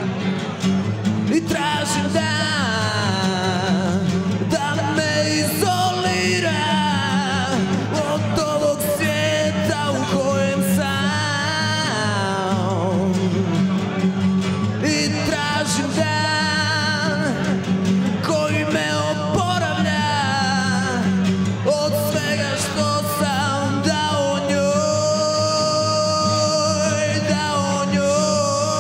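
Live acoustic band: a man singing into a microphone over several strummed acoustic guitars.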